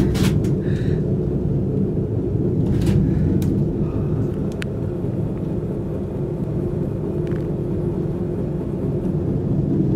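Steady low rumble and hum inside a cable car cabin as it rides along the cable, with a few faint clicks.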